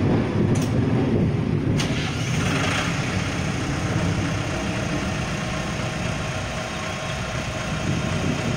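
XCMG LW156FV mini wheel loader's diesel engine running steadily at idle, with a sharp click about two seconds in.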